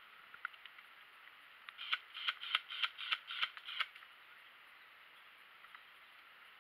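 Airsoft gun firing a quick string of about nine shots, some four a second, lasting about two seconds.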